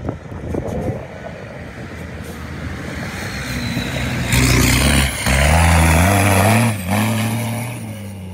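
Dakar rally race truck's diesel engine revving hard as it accelerates past, the engine note building and climbing, broken twice by short dips, then easing as it moves away.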